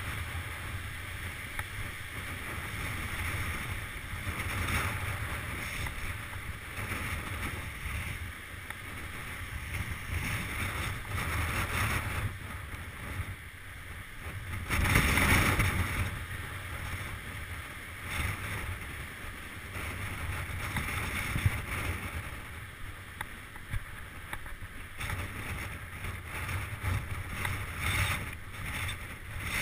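Mountain bike rolling fast down a gravel and rock trail: tyre crunch and frame rattle under wind noise on the camera microphone, with a louder stretch around the middle.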